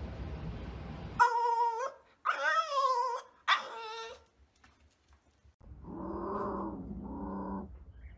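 French bulldog whining in three high, wavering calls, then making two lower, drawn-out growling grumbles.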